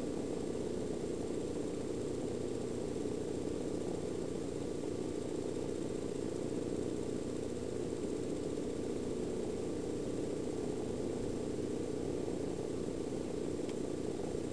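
Domestic cat purring steadily and continuously.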